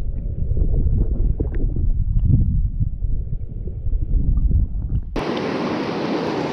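Muffled underwater sound of a river current, a low rumble with small knocks, which about five seconds in switches abruptly to the open hiss of fast-flowing river water above the surface.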